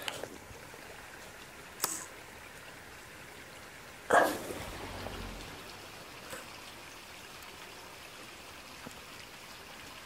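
Faint steady outdoor background hiss, with handling noise from a DSLR being raised and held to the eye: a sharp click about two seconds in and a louder knock about four seconds in with a brief low rumble after it.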